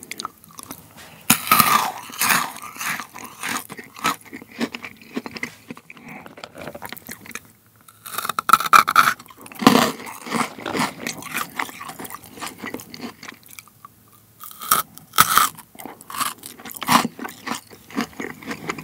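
Close-miked crunching and chewing of plain Maltesers, the chocolate shell and crisp malted centre cracking between the teeth. It comes in three loud bouts of bites, about a second, eight seconds and fourteen seconds in, with softer chewing between them.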